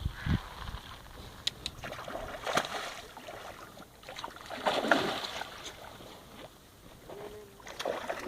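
Water splashing and sloshing in irregular bursts, loudest about two and a half and five seconds in, with small clicks between.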